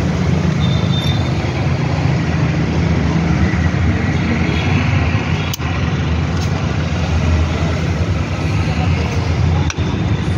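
Steady, loud low rumble of road traffic and vehicle engines.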